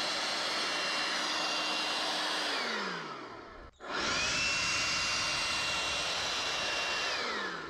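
An electric motor-driven fan spinning up and blowing air with a steady rushing noise and whine, then winding down, twice: the first run winds down about three seconds in, and the second starts about a second later and winds down near the end.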